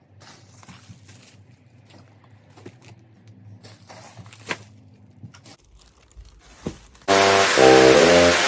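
Faint scattered clicks and rustling, then about seven seconds in, loud intro music starts suddenly: a bright hiss over steady keyboard-like notes.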